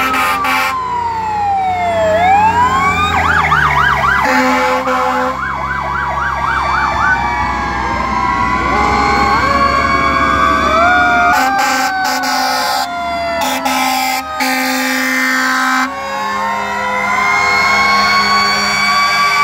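Several fire truck sirens wailing at once, rising and falling out of step as the trucks pass one after another, with a fast yelp from about three to seven seconds in. A low engine rumble sits under the first half.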